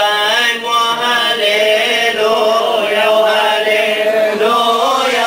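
Men chanting a liturgical hymn in church, with long held notes that change pitch only now and then.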